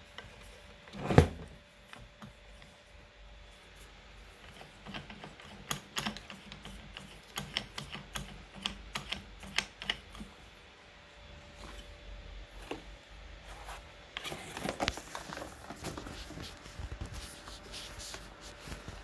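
Scattered clicks, knocks and rattles of hands handling and fitting accessories to an FX Maverick air rifle, with one loud thump about a second in and a denser flurry of knocks and rustling about three quarters of the way through.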